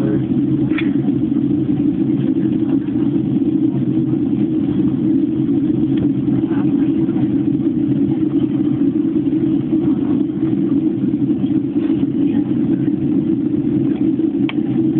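Steady low drone of a Boeing 767-300's cabin in flight, the engine and airflow noise heard from inside the cabin during descent.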